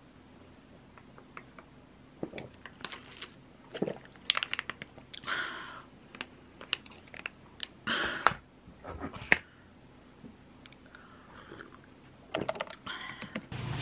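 Irregular crinkles, taps and clicks of a red ginseng drink's packaging being handled while it is drunk. There is a louder noisy rustle around the middle and a quick cluster of clicks near the end.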